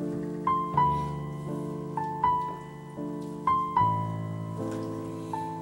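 Background music: a slow piano melody, single struck notes ringing over held lower chords.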